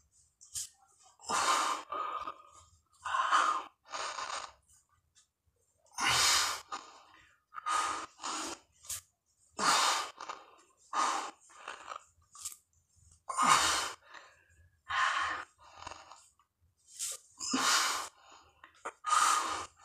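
A man breathing hard through push-ups about 145 reps into a set of 200: forceful, gasping breaths in and out roughly once a second, some much louder than others.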